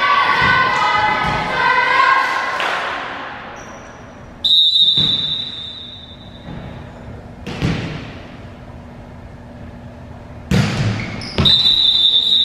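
Volleyball referee's whistle blown twice, each a steady shrill blast of about two seconds: one about four and a half seconds in and one near the end. In between come two single thuds of the volleyball being struck, and voices at the start.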